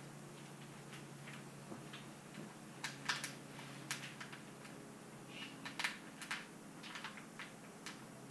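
Faint, scattered small clicks and ticks of an Allen key driving screws into the lid of a paintball loader, thickest in the second half, over a steady low hum.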